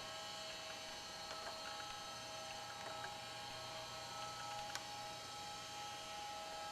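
Steady, faint electrical hum with several high whining tones held underneath, and a few faint clicks.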